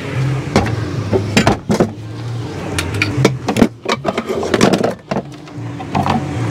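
Metal cookware clinking and knocking as a strapped nesting pot set is set down into a drawer and the pots and pans in it are shifted about. There is a scatter of sharp knocks, thickest around the middle.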